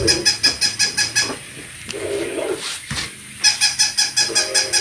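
Rapid, regular squeaking from a toy, about seven squeaks a second. It stops for about two seconds in the middle, then starts again.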